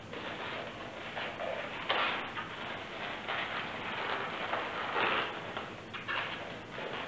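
Inflated latex twisting balloons (160s) rubbing against each other and against the hands as they are handled and tied, in irregular rustling bursts, loudest about two seconds in and again about five seconds in.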